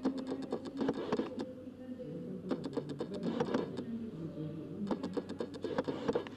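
Indistinct voices in a room, with irregular clicks and taps from people moving about and handling things.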